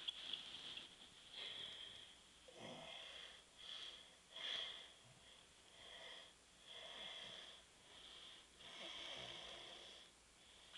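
Faint, wheezy breathing and light snoring of a sleeping man, a short noisy breath about every second.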